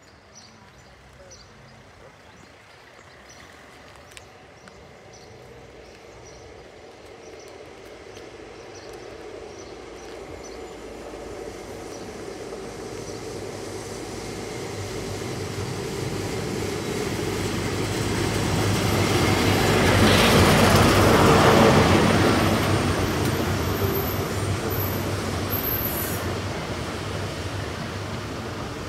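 High Speed Train led by a Class 43 diesel power car approaching and running past along the platform. The rumble of engine and wheels builds steadily for about twenty seconds, is loudest as the train draws level, then eases off.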